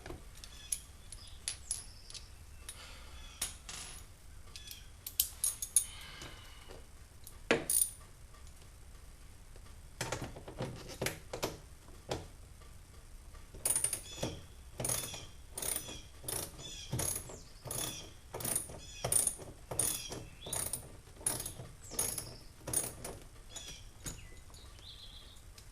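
A ratchet with a 10 mm socket clicking as it turns a speaker-bracket fastener inside a car door. The clicks are scattered at first, then come steadily, about two a second, through the second half.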